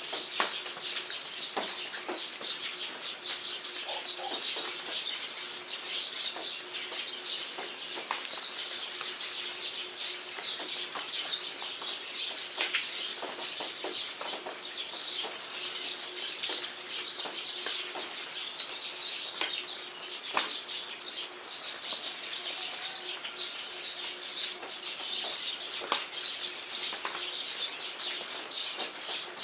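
Steady rain pattering, with many small sharp drop hits, and songbirds chirping through it.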